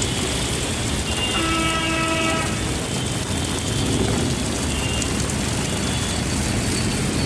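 Heavy rain falling steadily with a constant rushing hiss, and a horn sounding once for about a second a little over a second in.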